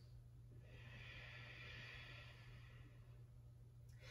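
Near silence: faint room tone with a low steady hum. One soft, slow breath swells and fades, starting about half a second in and lasting about two seconds.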